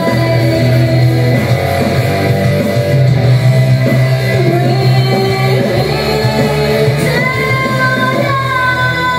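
Karaoke music playing loud and steady, with a woman singing along through a handheld microphone.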